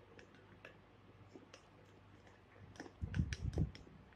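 Hand beating thick besan batter in a glass bowl: faint wet clicks and slaps, then a louder run of low thumps and clicks about three seconds in.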